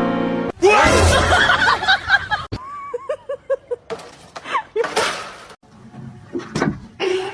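Music cuts off, then a person laughs loudly in short, rhythmic ha-ha pulses, with other sudden yelps and exclamations.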